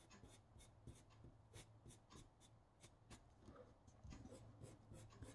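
Faint scratching of a wooden pencil's graphite on paper, quick short shading strokes at about three a second.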